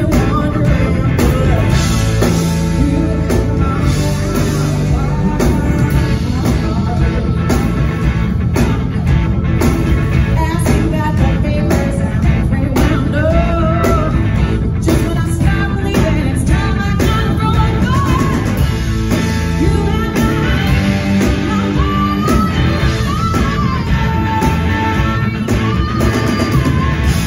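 Live blues-rock band performing: a woman singing lead over electric guitar and a full band, loud and steady throughout.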